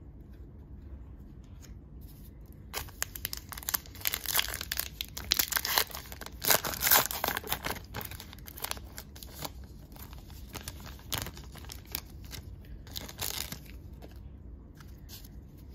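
Wrapper of a 2023 Upper Deck AEW trading card pack being torn open and crinkled: a dense crackling rustle starts about three seconds in, is loudest midway, then thins to scattered crinkles.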